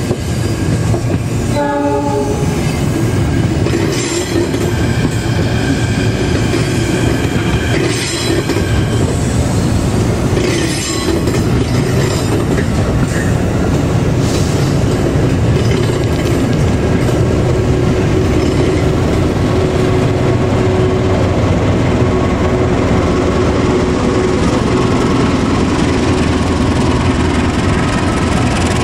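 A diesel locomotive hauling passenger coaches and an electric commuter train passing close by: a steady heavy rumble of engine and wheels on the rails, with a short horn blast about two seconds in and wheels squealing now and then during the first half.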